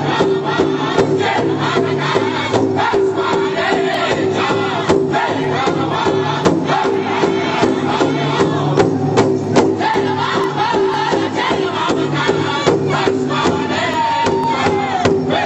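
Powwow drum group singing a song in unison, the men striking a large shared drum with sticks in a steady beat.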